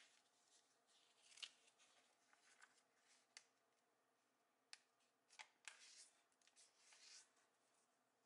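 Faint rustling and crinkling of a sheet of origami paper as it is folded in half and the crease is pressed flat by hand. It comes as a handful of short, sharp rustles with a lull about midway.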